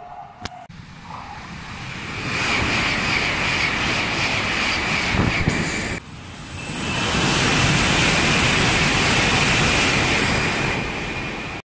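Kyushu Shinkansen bullet train passing through a station at high speed: a loud, even rush of air and wheel noise that builds up. It breaks off at about six seconds, swells again and cuts off abruptly near the end.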